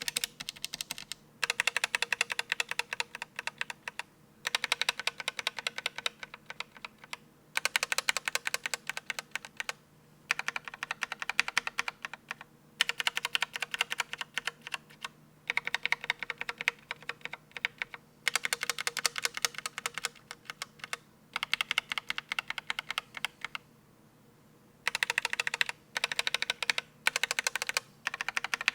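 Linear mechanical keyboard switches in a Think6.5 keyboard with a polycarbonate plate, pressed rapidly in bursts of a couple of seconds with short pauses between, and one longer pause near the end.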